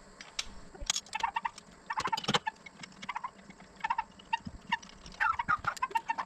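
Poultry calling: several quick runs of short, rapid notes.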